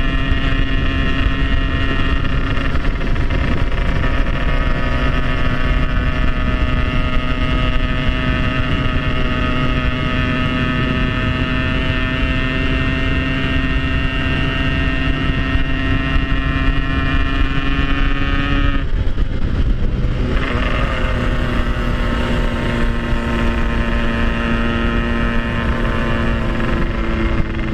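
Yamaha RX-King 135 cc two-stroke single-cylinder motorcycle engine running under way, its note rising slowly, then cutting out briefly about two-thirds of the way through and coming back at a lower pitch. A steady low rumble of wind on the microphone runs beneath it.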